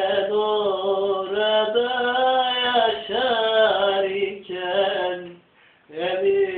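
A man singing a Turkish song solo without accompaniment, holding long notes with ornamented, wavering pitch. The singing breaks off briefly twice, about four seconds in and again for half a second near the end.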